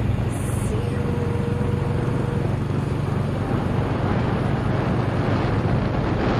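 Engine and road noise of a moving car heard from inside the cabin: a steady low rumble with no sharp events.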